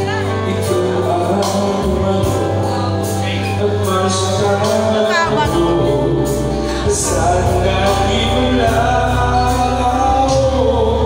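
A singer performing a song into a handheld microphone over accompanying music with a steady bass line.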